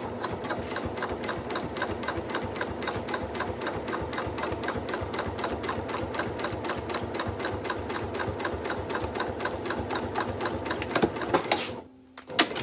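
Electric sewing machine topstitching through several layers of fabric, its needle running at a steady pace of about six to seven stitches a second. It stops near the end with a couple of sharp clicks.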